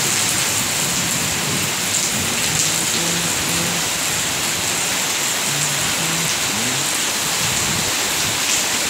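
Heavy rain pouring steadily onto paving and foliage, an even, dense hiss.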